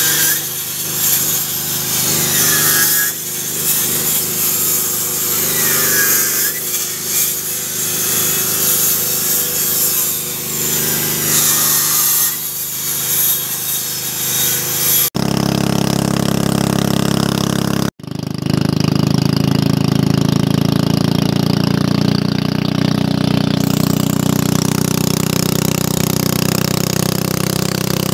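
A handheld corded electric saw cutting wooden planks, its whine rising and falling as it bites into the wood. About halfway through, the sawing stops abruptly and a boat's engine takes over, running steadily.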